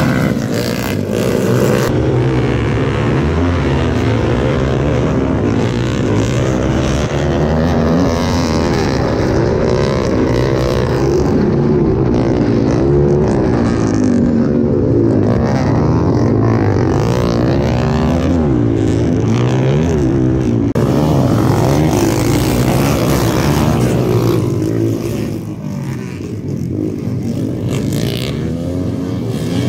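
Motocross dirt-bike engines racing, revving so that their pitch climbs and drops over and over. The sound eases off for a few seconds near the end.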